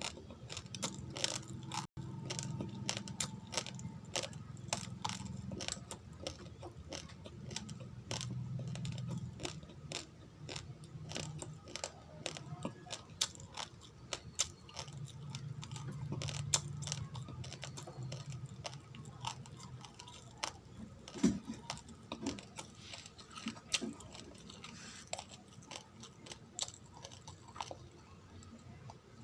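A person chewing raw, uncooked rice grains: a dense, irregular run of small sharp crunches.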